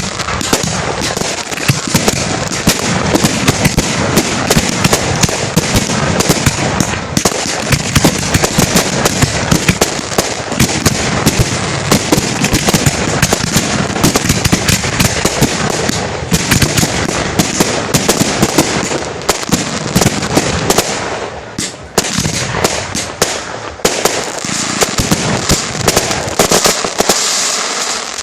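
Firework display finale: a dense, unbroken barrage of shell bursts and crackling, many bangs a second. It thins briefly about three-quarters of the way through and starts to die away at the very end.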